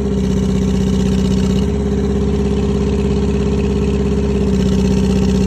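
Thomas 135 skid steer's engine running at a steady speed, its tone shifting slightly a few times.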